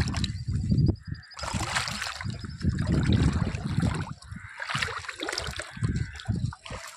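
Sea water sloshing and splashing in uneven surges as someone moves through it and handles a fishing net.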